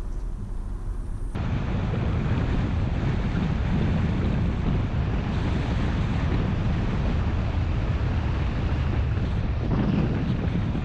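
Wind noise on the microphone of a GoPro mounted on a car's bonnet as the car drives a gravel and dirt road, over a low road rumble. The noise jumps suddenly louder about a second and a half in, then holds steady.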